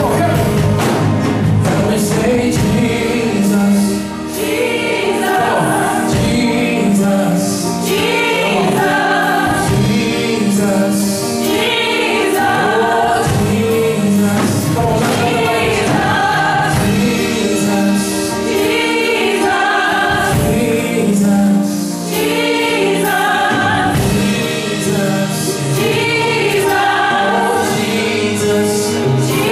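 Choir singing a gospel worship song, holding long notes over live band accompaniment with a steady beat.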